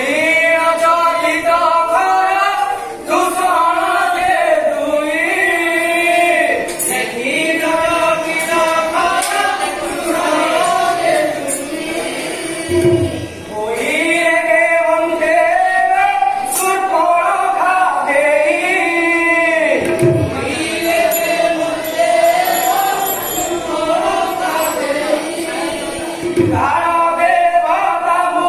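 Ramleela stage song: singing in long, wavering held notes over a steady drone with instrumental accompaniment, pausing briefly a few times.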